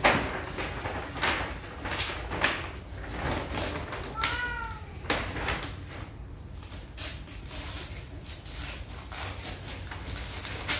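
Gift wrapping paper and paper gift bags rustling and crinkling as presents are unwrapped, loudest at the very start. About four seconds in comes one short meow from a cat, rising and then falling.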